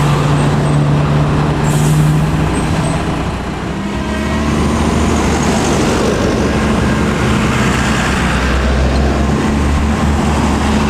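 UD Quester CQE 280 truck's diesel engine running during a test after a differential replacement. Its steady note dips about three and a half seconds in and settles lower, with a short air hiss about two seconds in.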